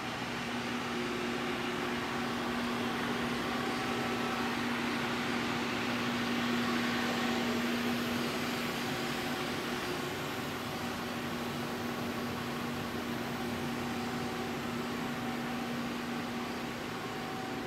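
Cincinnati 220-8XG centerless grinder running with its grinding wheel and regulating wheel turning: a steady machine hum with a few fixed pitches over a hiss, swelling slightly about midway.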